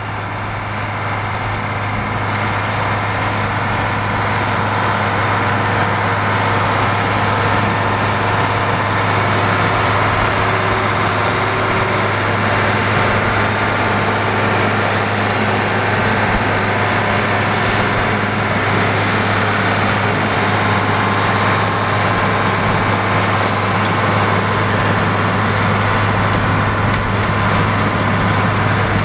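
International 966 tractor's 414 cubic inch six-cylinder diesel running steadily under load while mowing hay, with the New Holland 1465 Haybine mower-conditioner running behind it.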